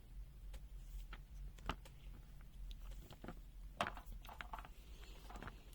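Faint scattered clicks and light taps of hands handling the multimeter's test leads and plastic parts, with a few slightly louder taps near the middle.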